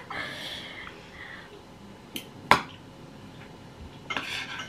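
Metal spoon and fork working on a ceramic plate: one sharp clink about two and a half seconds in, the loudest sound, with a lighter tick just before it and soft scraping around it.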